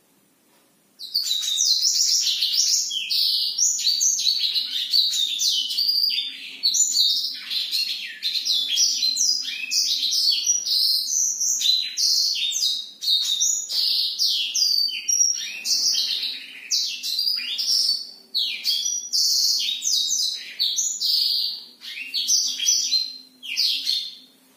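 A caged blackthroat (black-throated canary) sings one long, unbroken run of quick, high twittering notes with only brief dips. It starts about a second in and stops just before the end.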